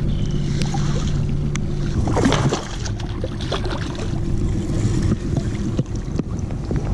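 A hooked largemouth bass thrashing and splashing at the water's surface as it is reeled in to the boat and lifted out, over a steady low rumble.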